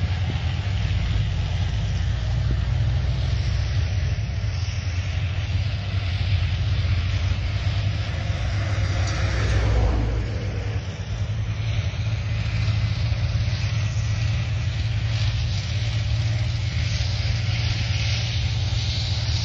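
Tracked armoured vehicles (BMP-type infantry fighting vehicles) driving past: a steady low engine and track rumble that swells briefly about halfway through, then dips.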